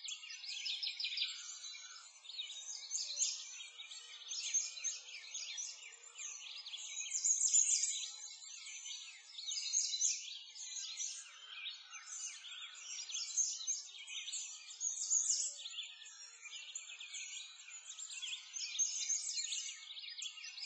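Many small birds chirping at once in a dense, continuous chorus, swelling and fading every second or two.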